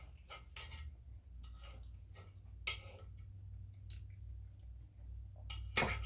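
Someone eating grilled shrimp and steak close to the microphone: chewing with scattered small clicks and scrapes, a sharper one about two and a half seconds in and the loudest just before the end, over a low steady hum.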